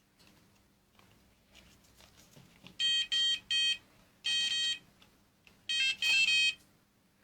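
Electronic fishing bite alarm beeping in high-pitched tones: three quick beeps about three seconds in, then a longer beep, then two more beeps near the end.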